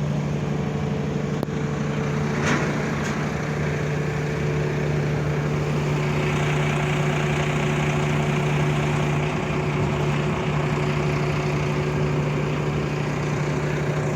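Excavator's diesel engine running steadily with a constant hum, and a single click about two and a half seconds in.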